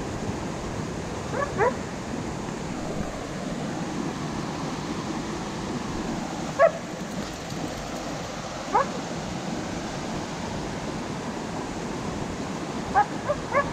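Husky giving a few short rising yips, with a quick cluster near the end, over the steady rush of a mountain creek and waterfall.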